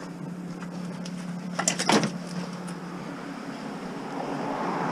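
A child's bicycle being set into a minivan's cargo area, with a short clatter of metal and plastic knocks about two seconds in, over a steady low hum.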